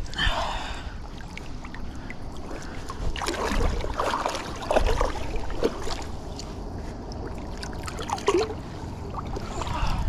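Creek water splashing and sloshing, with scattered irregular knocks and rustles.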